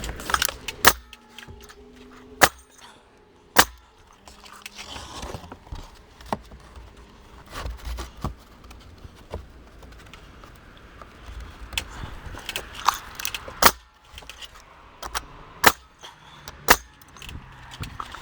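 Vevor MCN70 pneumatic coil siding nailer firing nails into wooden clapboard siding: sharp single shots a second or several apart, a few much louder than the rest, with lighter rattling and knocking of handling in between.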